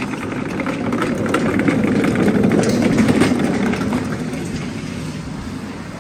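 Wheeled metal trolley rolling over a concrete warehouse floor, a rumble with rattling clicks that grows louder to a peak about halfway through and then fades away.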